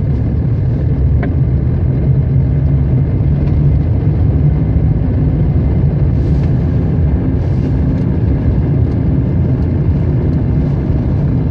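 Car engine and tyre noise heard from inside the cabin while driving at low speed: a steady deep hum.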